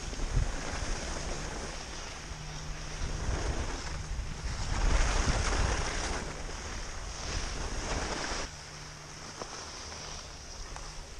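Wind buffeting a helmet-mounted action camera's microphone, with the rushing hiss of skis sliding over packed snow as the wearer skis downhill. It swells and fades, is loudest about five seconds in, and drops off sharply a few seconds before the end.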